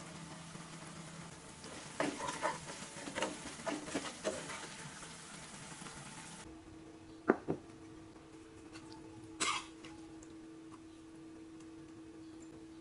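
Sambal of chilies and shallots sizzling as it cooks down in a frying pan, with a run of spatula scrapes and knocks against the pan about two to four seconds in. The sizzle cuts off suddenly past the middle, leaving a faint steady hum, then two sharp knocks close together and a brief scrape.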